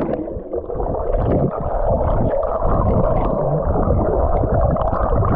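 Muffled underwater sound of a person diving and swimming in a natural waterfall pool: a steady rush of water with irregular low rumbling and bubbling.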